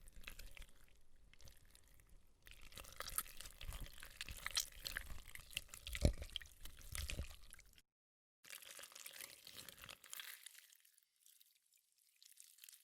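Recorded squelches of homemade PVA-glue slime being squeezed and pulled, a dense run of wet, sticky crackles and smacks. It cuts to silence about eight seconds in, then a second, thinner passage of squelching fades out.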